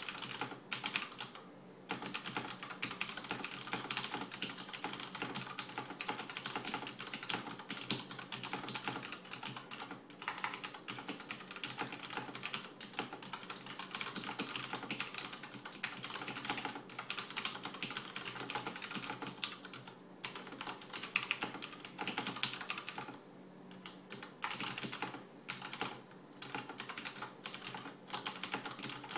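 Continuous fast typing on a Das Keyboard Professional Model S mechanical keyboard with Cherry MX Brown switches: a dense run of key clacks with a few short pauses, one near the start and a couple more about two-thirds of the way through, over a faint steady hum.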